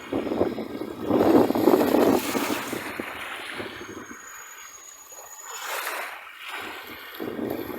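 Sea waves breaking on a beach: a loud surge of surf about a second in that eases into a quieter wash, with another wave building near the end.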